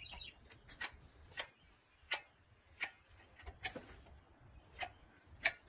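Hand caulking gun clicking as its trigger is squeezed again and again to push out a bead of silicone: a run of faint, sharp clicks, roughly one every half second to second.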